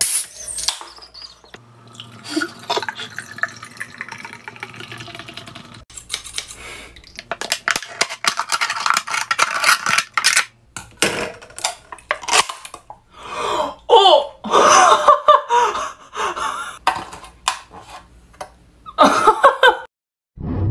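A Guinness Draught can's ring-pull cracked open with a sharp hiss, then beer fizzing and dripping. From about six seconds in, scissors crunch and snip through the thin aluminium can in a quick run of clicks, and short vocal exclamations follow near the end.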